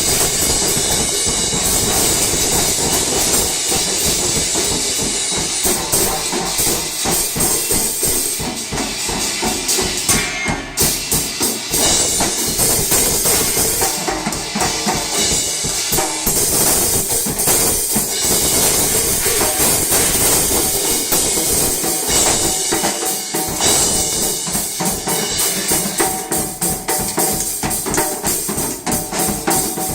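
Loud, fast drumming on a drum kit, with dense rapid hits that keep going without a break.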